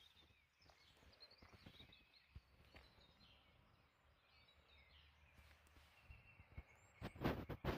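Faint birds chirping and calling over an otherwise near-silent background, with a few sharp knocks near the end.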